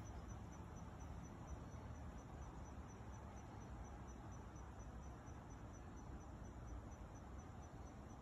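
Insect chirping faintly and steadily outdoors, high-pitched, about three even chirps a second, over a low rumble.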